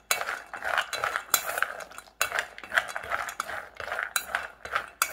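Metal spoon stirring cashews coated in ghee in a stainless steel bowl, scraping and clinking against the bowl in quick irregular strokes, with a short pause about two seconds in.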